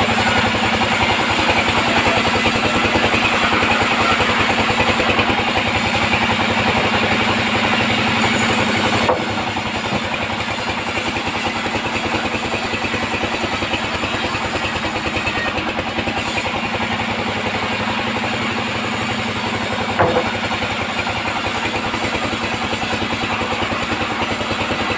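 Sawmill band saw running steadily on its engine drive. The sound drops a little about nine seconds in, and there is a short knock near twenty seconds.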